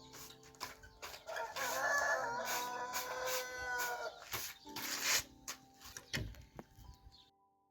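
A rooster crows once, a long call of about three seconds, followed by a few short clucks, over faint background music. The sound cuts off shortly before the end.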